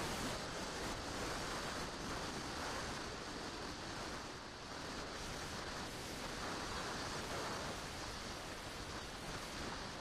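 Steady rush of airflow over the microphone of a camera mounted on a flying RC model plane, an even hiss-and-rumble with no clear motor tone.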